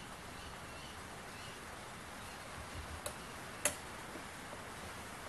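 Two light metallic clicks of a screwdriver tip against a screw head on a metal mounting plate, about half a second apart, the second louder, over a steady background hiss.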